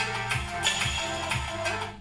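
Music with a strong bass line, streamed from a phone over Bluetooth and played through a small speaker driven by an M-858S-V2.0 5 V Bluetooth amplifier board. The music drops in level near the end.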